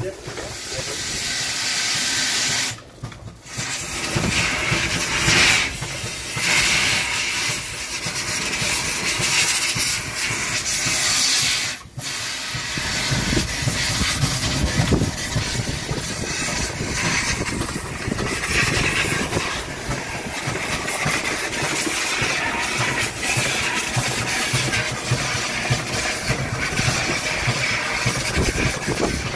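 Steam hissing from a Merryweather steam fire pump's boiler, broken by short drops about 3 and 12 seconds in. After the second break the hiss turns rougher, with an irregular low rumble underneath.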